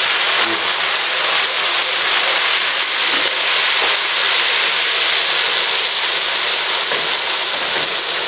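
Wet onion paste frying in hot ghee in a large aluminium pot: a loud, steady sizzling hiss as the water in the paste boils off in steam.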